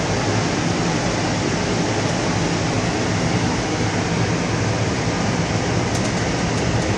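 Steady machine noise from body-shop equipment running: a continuous low hum under an even hiss that does not change.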